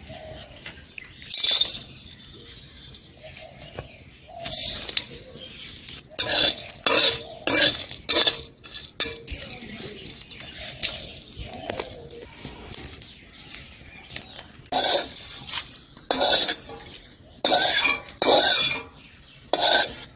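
Whole spices being dry-roasted and stirred in a hot, empty iron kadai: a run of short, sharp clinks and scrapes against the iron, bunched in two spells with quiet gaps between them.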